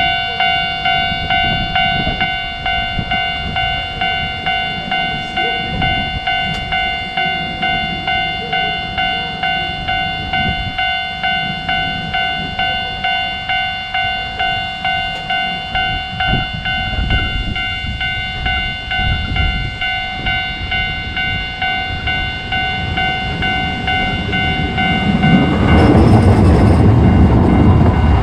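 Japanese railway level-crossing alarm bell ringing its steady electronic "kan-kan" clang, about two strikes a second. About 25 seconds in, the loud running noise of a Hiroshima Electric Railway streetcar crossing rises and drowns the bell.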